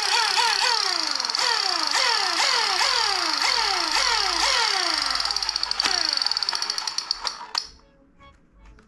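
Electronic toy sound effect: a string of repeated falling beeps over a steady high whine, the falls quick at first and then slower, cutting off abruptly with a click near the end, followed by a few faint clicks.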